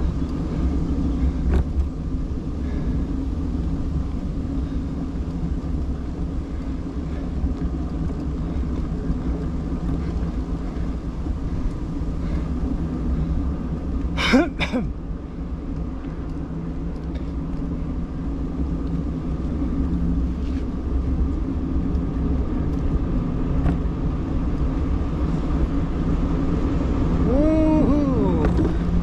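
Car on the move: a steady low rumble of engine and road noise. Halfway through there is one brief, sharp, high-pitched sound, and near the end a short wavering tone.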